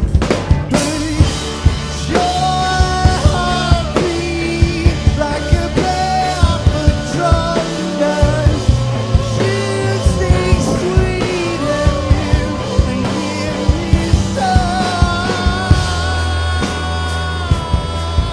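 Live rock band playing a passage between sung lines: drum kit and bass under a wavering lead melody with bending notes.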